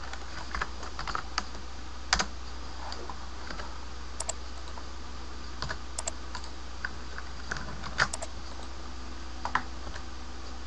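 Computer keyboard keys and mouse buttons clicking irregularly, single clicks and quick pairs a second or two apart, over a steady low hum and hiss.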